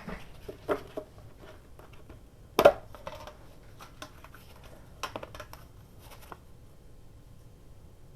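Paper craft supplies being handled and sorted through, a run of light rustles and taps with one sharper knock about two and a half seconds in, going quiet after about six seconds.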